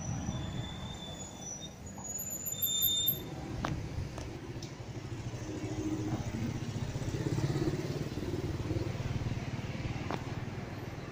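Outdoor street traffic: a steady rumble of car engines and tyres on the road that swells as a vehicle passes about halfway through. A few short, high chirps sound over it in the first three seconds.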